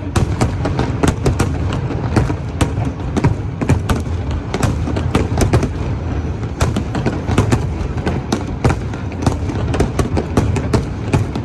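Fireworks display going off: a dense, continuous run of sharp bangs and pops, several a second, over a low rumble.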